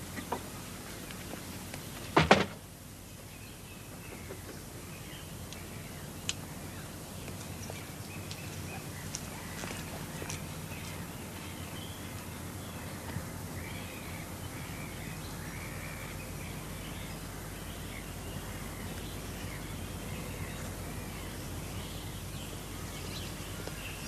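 A wooden front door shuts with a single loud thud about two seconds in. After that, birds call on and off over a steady outdoor hiss.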